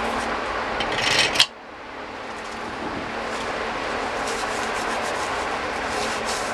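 Gloved hands handling billet steel crank straps and setting them onto main studs: rubbing and light scraping, with a louder scraping rush about a second in that cuts off suddenly.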